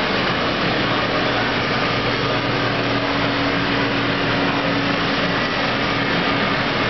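Steady machine noise with a faint low hum running under it, unchanging throughout.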